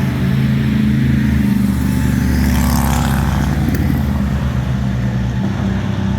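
GT3 race car engines running, with a steady low engine note throughout and another car passing by about halfway through.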